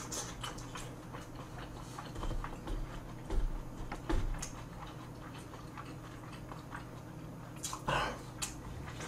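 A person eating with chopsticks: chewing, with scattered small clicks of chopsticks on plastic takeout containers and a few dull low thumps a couple of seconds in.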